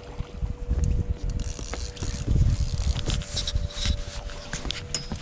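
Fishing reel ratcheting and clicking under load as a large striped bass is fought on a heavily bent rod, over a low, uneven rumble.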